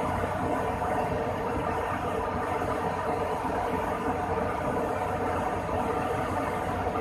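Steady running noise of an Airbus A300-600's machinery during an operational check, an even whir with a constant hum.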